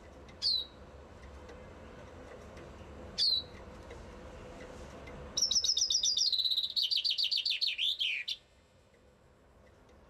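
Common chaffinch: two short, sharp notes sweeping downward, then about five seconds in a single song of about three seconds, a rapid trill that falls in steps and ends in a quick flourish.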